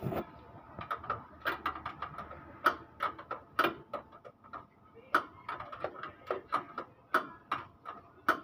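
Hand ratchet wrench clicking in short irregular runs as a bolt on the radiator support is turned, with a few louder metal clinks.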